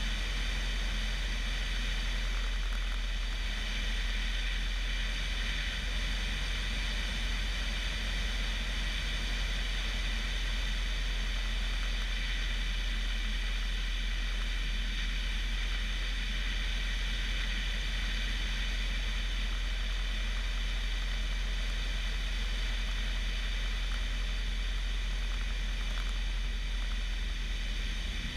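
Bellanca Decathlon's 150-horsepower Lycoming engine and propeller running steadily while the aeroplane comes in to land, mixed with steady wind rush on an outside, strut-mounted microphone.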